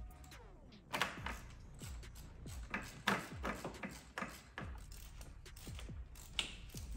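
A ratchet wrench clicking in short bursts while loosening spark plugs, with sharp clicks scattered through, the loudest about a second and three seconds in. Under it, background music with a steady bass beat.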